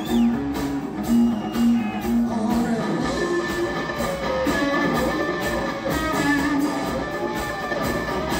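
Live electric rock band: a Stratocaster electric guitar played through Marshall amplifiers, over drums. For the first few seconds a repeating low riff runs with regular drum hits, then it opens into a denser passage with bent guitar notes.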